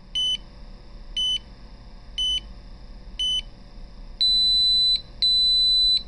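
Piezo buzzer on an Arduino microwave-timer controller sounding four short beeps about a second apart, then two longer, higher beeps, as the countdown runs out and the cycle ends.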